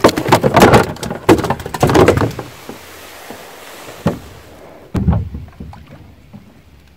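A quick run of knocks and clatter lasting about two seconds, then two single thumps a second apart.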